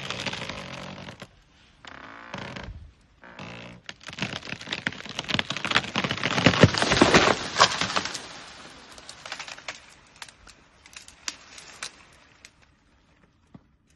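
A tree's trunk creaking and groaning under an elephant's push, then a long run of cracking and snapping wood as the tree breaks and crashes over, loudest about six to eight seconds in. Scattered snaps of branches follow, thinning out near the end.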